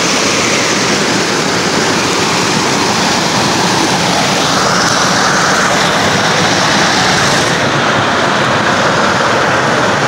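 A mountain river rushing over rocks in small rapids and cascades: a loud, steady rush of water that grows a little brighter about halfway through.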